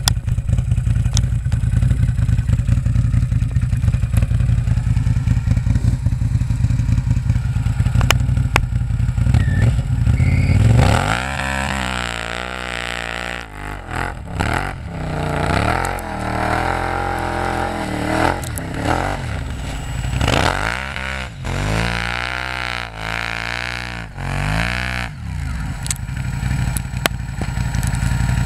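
Can-Am Renegade 800 XXC quad's Rotax V-twin engine with a steady low rumble close by. About ten seconds in it takes off through deep snow, revving hard again and again, its pitch climbing and falling with each burst of throttle.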